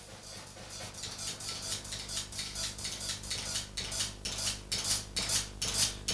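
Cymbals struck in a steady rhythm of about three metallic strikes a second, fading in and growing louder.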